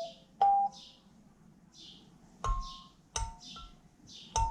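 Kalimba tines plucked one at a time, about five short ringing notes spaced unevenly as a beginner picks out a melody.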